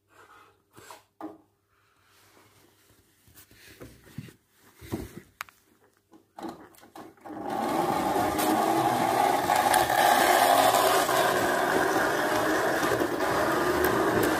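Gauge 1 model diesel locomotive running along the track with its coaches: a steady electric-motor and gear whir with wheels rolling on the rails. It starts abruptly about halfway through, after a few faint clicks.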